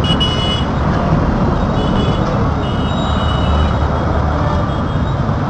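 Steady rumble of city road traffic and engine noise heard from a moving vehicle, with faint horns sounding briefly a few times.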